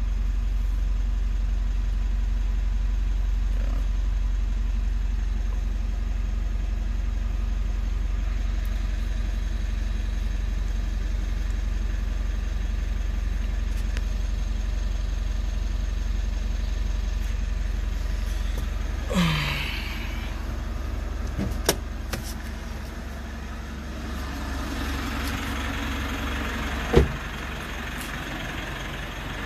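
Mitsubishi Montero Sport turbo diesel engine idling steadily, running normally after a start following weeks of sitting. About 19 seconds in there is a brief scrape, followed by a click; after that the idle sounds brighter and more clattery, as heard from outside the vehicle, with a single sharp thump near the end.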